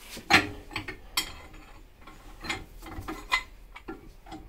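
Metal clinks and knocks, about six separate sharp strikes, as a C-spanner and a long steel lever bar are fitted onto a jammed coilover shock absorber held in a bench vice. The loudest knock comes just after the start.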